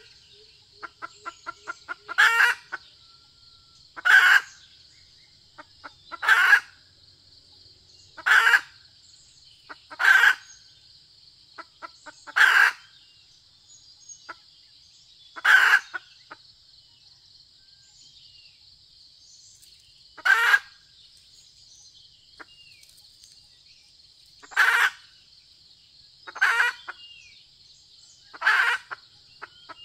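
Red junglefowl hen calling: short, loud calls repeated every two to five seconds, with a quick run of soft clucks about a second in, over a steady high hiss.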